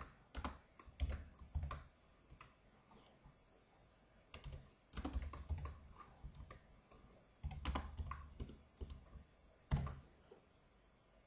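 Computer keyboard typing in short runs of keystrokes separated by pauses, with one single, louder keystroke near the end.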